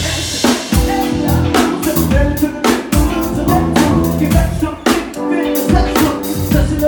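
Live rock band playing: drum kit with steady beats, electric guitars, bass and keyboard, with a man singing into the microphone.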